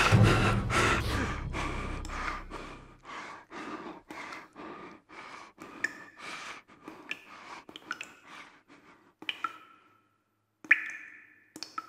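A man panting hard, about three breaths a second, growing steadily fainter. Near the end, a few sharp clicks each leave a brief ringing tone.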